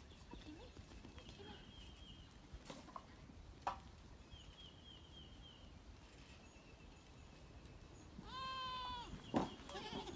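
A goat bleats once near the end, a single steady cry of just under a second. Before that there is only faint background with a few light knocks and faint high trills.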